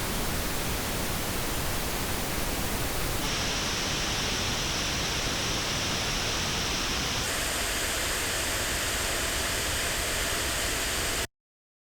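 Pink noise test signal at a steady level, played through headphones and picked up by an artificial ear simulator. Its tone colour changes abruptly about three seconds in and again about seven seconds in as playback switches between headphones. It cuts off sharply near the end.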